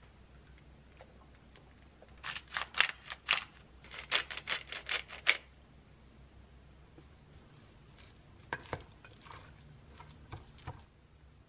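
A spice shaker shaken over a stainless steel mixing bowl in a quick string of about ten rattling shakes, then a few light clicks of a utensil against the bowl as the salad is mixed.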